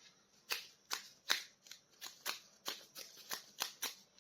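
About a dozen quick, irregular clicks and crinkles as a plastic action figure is handled.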